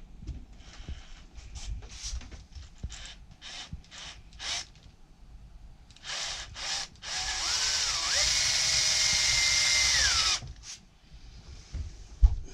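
Power drill boring a bolt hole into steel: several short trigger bursts, then a run of about three seconds in which the motor speeds up, holds and winds down. A sharp knock comes near the end.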